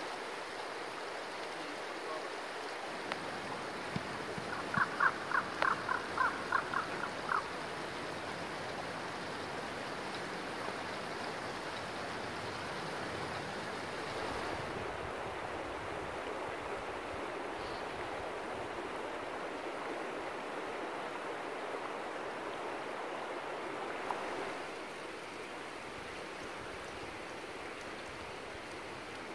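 Shallow river running over stones: a steady rushing. Between about five and seven seconds in, a quick run of about nine short, high pitched notes sounds over it, and the rushing drops a little near the end.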